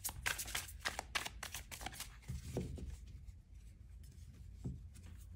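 A tarot deck being handled and shuffled by hand: a quick run of soft card clicks over the first two seconds or so, then a few quieter taps.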